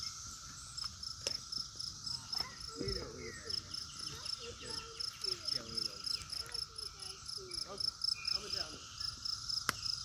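Chorus of periodical cicadas: a steady, even drone with a rapid high pulsing of about five beats a second over it. A single sharp click comes near the end.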